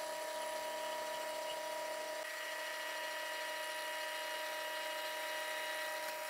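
Milling machine running with a steady, even whine as its end mill skims the aluminium deck of a jet ski cylinder flat for a gasket surface.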